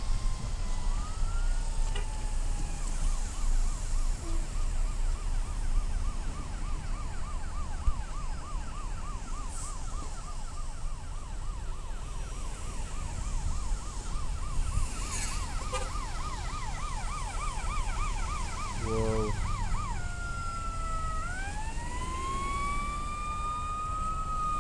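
Emergency vehicle siren in a fast yelp, about four sweeps a second, switching near the end to a slow rising-and-falling wail, over a steady low traffic rumble. A short pulsing low blast sounds just before the switch.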